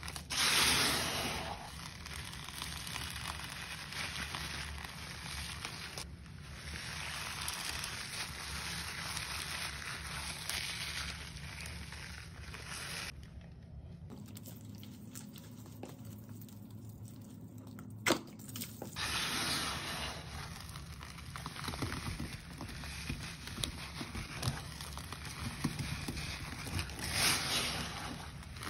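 Rubber-gloved hands squeezing and rubbing crunchy, gritty cleaning powder, a continuous crackle. About halfway through it drops to a quieter stretch with one sharp click while lime Ajax liquid cleaner is poured on. The crunching then resumes as the dampened powder is worked by hand.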